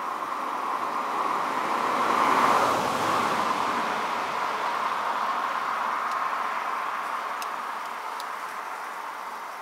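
A car passing on the road, its tyre and engine noise swelling to a peak about two and a half seconds in and then fading slowly.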